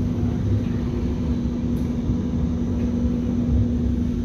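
Passenger train running, heard from inside the carriage: a steady low rumble with a steady hum over it.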